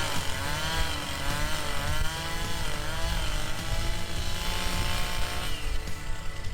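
Chainsaw running steadily, its engine pitch rising and falling over and over as it cuts.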